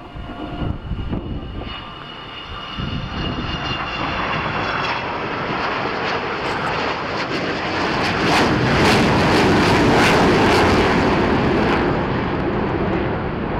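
Avro Vulcan bomber's four Rolls-Royce Olympus jet engines on a flypast, growing louder to a peak about two-thirds of the way through and then easing slightly. A thin high whine is heard over the engine noise early on and fades.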